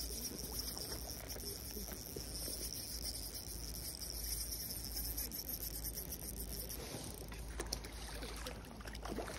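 A spinning reel whirring steadily while a hooked trout is played. About eight seconds in, water splashes as a landing net scoops the fish.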